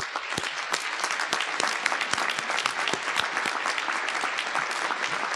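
Audience applause: many people clapping steadily, the sustained applause of a crowd at a ceremony.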